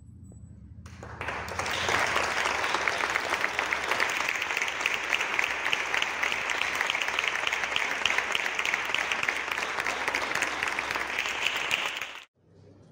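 Audience clapping in a church: the applause starts about a second in, holds steady, and cuts off abruptly near the end.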